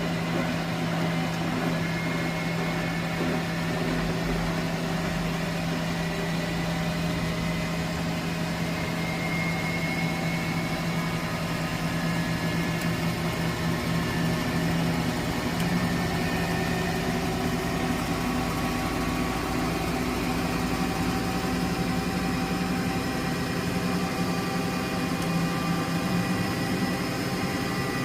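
Miele De Luxe W423 washing machine running, its motor humming steadily with a faint high whine that drifts slightly in pitch.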